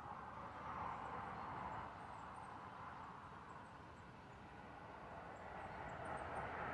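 Faint outdoor background noise, a steady rushing that swells about a second in and again near the end, with no distinct event.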